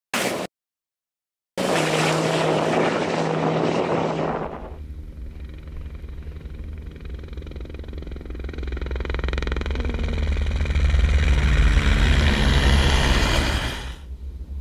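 A helicopter flying low toward the microphone, its rotor and engine sound growing steadily louder for about eight seconds and falling away just before the end. Before it come about three seconds of loud rushing noise.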